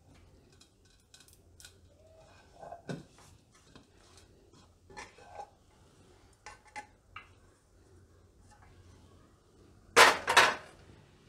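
Utensils knocking and clinking against a stainless steel plate, with scattered light knocks. Near the end come two loud metal clatters about half a second apart.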